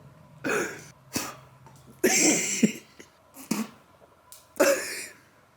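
A person coughing in about five separate short bouts, with brief quiet gaps between them.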